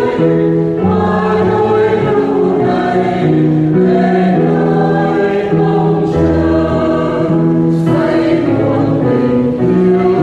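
Catholic hymn sung by a choir with accompaniment: sustained chords changing every second or so over a slow-moving bass line.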